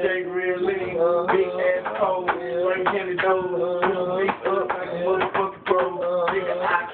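Music with a male voice singing over a steady held note.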